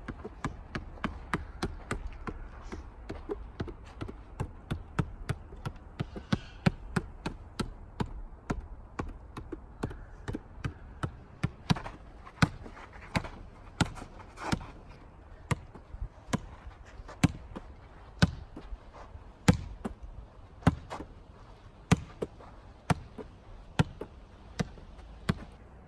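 A netball repeatedly striking a painted concrete-block wall. For about the first ten seconds it makes quick, light taps, two or three a second. From about twelve seconds in come louder thuds, roughly one a second, as the ball is thrown at the wall and caught.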